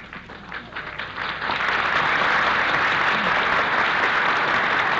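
Studio audience applause, swelling about a second and a half in and then holding steady and loud.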